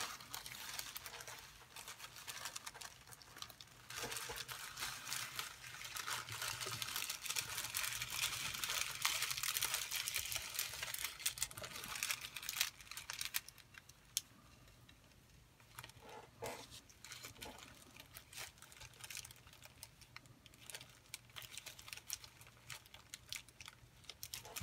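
Zip-top plastic bag of sequins crinkling as it is handled, with many small clicks, busiest for the first half. It then settles to quieter, scattered rustles and clicks.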